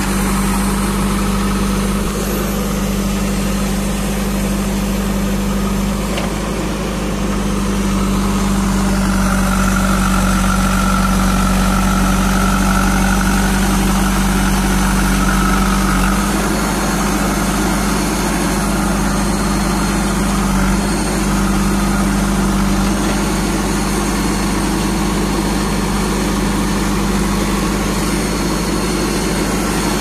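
JCB 3DX backhoe loader's diesel engine idling steadily, heard close up. A faint higher whine rides over it for several seconds in the middle.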